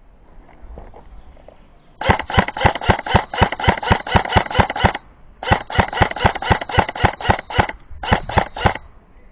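Airsoft gun firing in three bursts of rapid, evenly spaced shots, about five a second: a long burst, a second long one, then a short one near the end.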